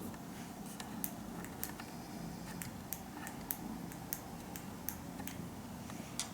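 About a dozen light, irregular clicks and taps over faint room noise.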